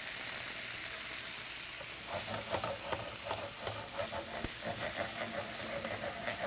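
Shallots, celery, scallions and bacon sizzling in olive oil in a skillet, with dry vermouth just poured in. From about two seconds in, the pan is shaken on the burner, adding irregular scraping rattles over the sizzle.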